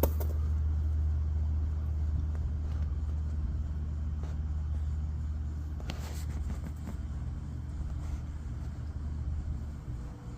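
A steady low mechanical hum, like a motor or engine running, with a sharp click at the very start and a fainter knock about six seconds in.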